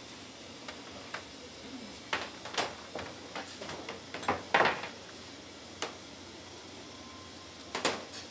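Small ceramic bowls and plates clinking and knocking as they are handled and set down on a counter and onto a serving tray, a scatter of sharp knocks, loudest about four and a half seconds in, over a steady background hiss.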